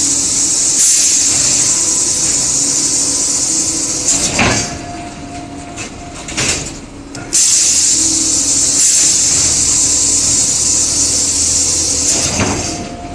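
Pneumatic vacuum suction loader for plywood sheets at work: a loud, steady air hiss for about four seconds, a pause with two sharp knocks, then the hiss again for about five seconds, over a steady machine hum.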